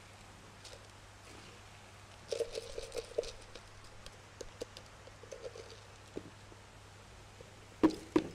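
Metal spoon scraping and clicking inside a plastic measuring jug while the leftover sticky medicine paste is scraped out, in a burst of small clicks about two seconds in and scattered ticks after. Near the end come two sharp knocks, the loudest sounds, as the jug is tipped and knocked against the feed bucket.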